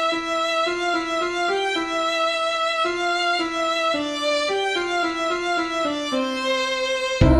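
Solo violin playing a hymn melody as an introduction, one note at a time, each held about half a second, the line falling lower toward the end. Just before the end, louder and fuller music comes in.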